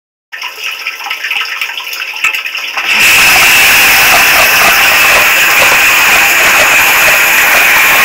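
Dishwasher wash spray heard from inside the tub: quieter with a few faint clicks at first, then about three seconds in the water jets start and run loud and steady, spraying over the racks.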